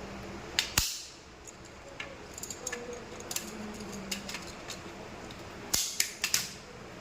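A series of sharp clicks and snaps: two loud ones under a second in, lighter scattered ticks through the middle, and a cluster of four loud snaps near the end.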